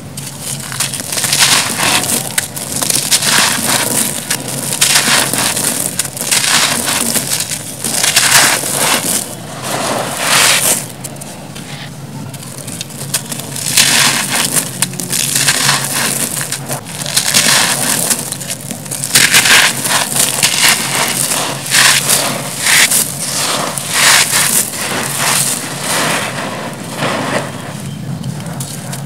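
Dry, porous grey concrete blocks crushed by hand, the crumbs and dust pouring onto a heap of crushed concrete: a run of gritty crunches in bursts, one every second or two.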